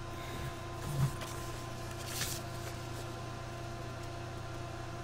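Soft handling sounds, a couple of low bumps and one short rustle about two seconds in, over a steady electrical hum.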